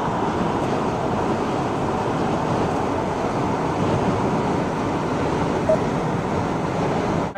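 Steady road and wind noise of a car being driven, an even rushing hiss with no clear engine note.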